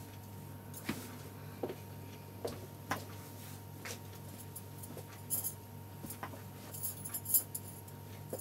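Cotton sheeting being handled and folded on a table: soft rustles with scattered light clicks and clinks, a few of them grouped past the middle, over a faint steady hum.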